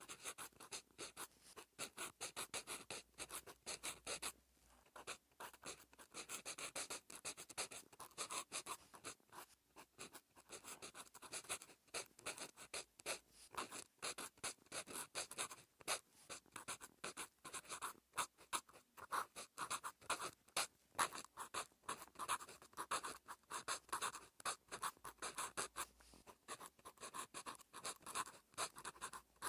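Pen nib scratching on paper in quick short strokes while writing Korean by hand, with a brief pause about four seconds in.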